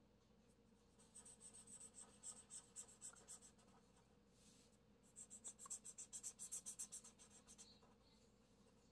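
Faint scratching of a felt-tip marker on paper, colouring in with quick back-and-forth strokes. There are two runs of strokes, one starting about a second in and a slightly louder one about halfway through.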